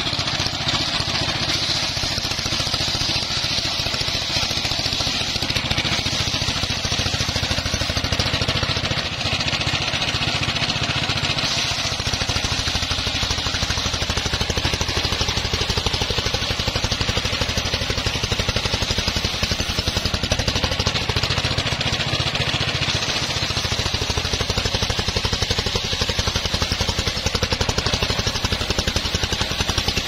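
Homemade engine-driven circular sawmill running steadily, its large blade ripping a teak log lengthwise into rafters, with the engine's fast even beat under the hiss of the cut.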